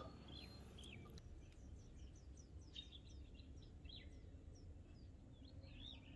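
Near silence with faint bird chirps: a run of short high chirps in the middle and a few scattered lower calls.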